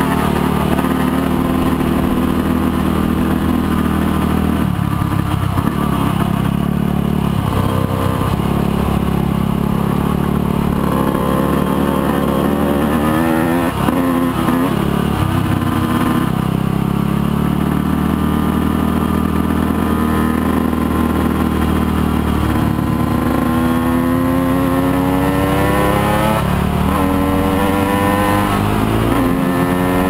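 Motorcycle engine running under way at a steady pitch, then in the last several seconds climbing in pitch twice with a drop between, as it accelerates through a gear change.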